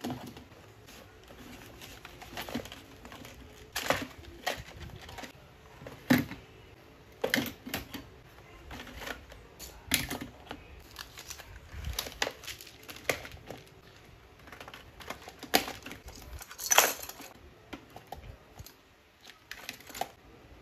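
School supplies being packed into a metal wire basket: plastic cases, pens, a glue stick and folders set down and shuffled into place, giving irregular clicks, knocks and rustles of plastic and paper. The loudest knock comes near the end.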